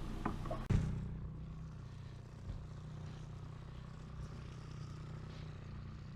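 Boat motor running steadily at low speed, with a single sharp knock less than a second in.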